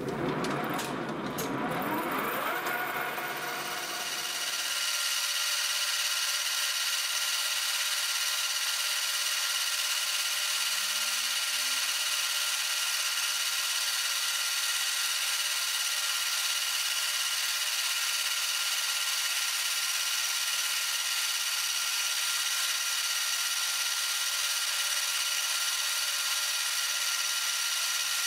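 Metal lathe running with a drill bit in its chuck. It rises in pitch as it comes up to speed over the first few seconds, then holds a steady whine while a steel sprocket is pressed against the turning bit. The bit rubs rather than cuts and goes hard.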